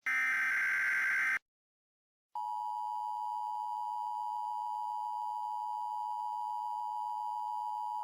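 Emergency Alert System alert tones. First the last of the SAME header data bursts, a harsh screeching digital chirp that stops about a second and a half in. After a second of silence comes the EAS attention signal, a steady two-pitch tone held for about six seconds that cuts off abruptly.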